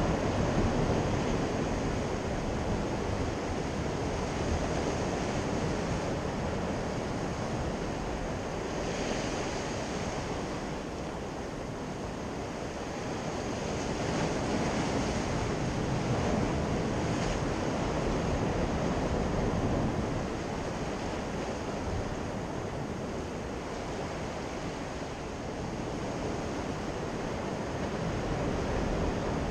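Sea surf washing against shoreline rocks, a steady rush that swells and eases over several seconds, with wind noise on the microphone.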